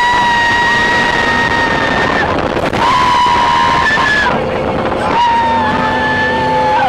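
Riders screaming in long, held, high-pitched cries, several in a row, over the rushing wind and running noise of an open theme-park race car at speed.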